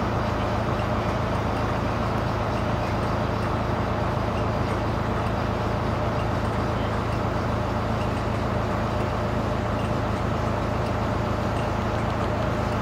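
Heavy-haulage truck's diesel engine running steadily, a constant low drone with no breaks or changes.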